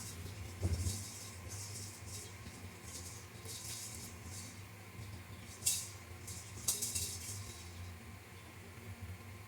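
Small model parts being handled at a workbench: a soft knock about a second in, then a handful of brief, scattered scratchy scrapes and clicks over a low steady hum.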